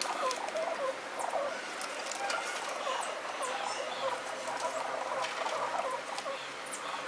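Several rock pigeons cooing in quick, short, chattering calls, sped up to double speed, with scattered sharp clicks and taps throughout.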